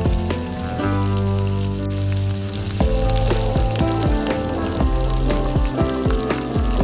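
Food frying in hot oil, crackling and sizzling in quick irregular pops, over background music with held notes.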